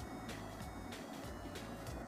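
Background music with a steady beat, about three beats a second.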